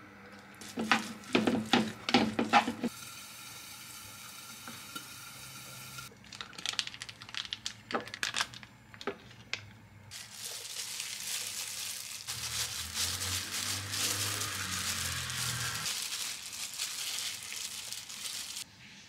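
Kitchen handling sounds: a spoon and rice paddle knocking in a wooden bowl of rice for a couple of seconds, scattered light clicks, then a long, steady, dense crackling hiss for the last eight seconds or so.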